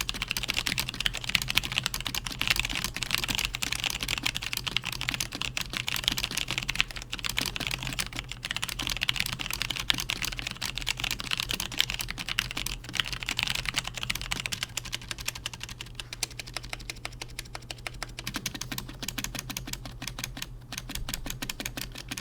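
Continuous fast typing on a Logitech G512 Carbon mechanical keyboard with Romer-G Tactile switches: a dense, unbroken run of key clicks and keycap clatter.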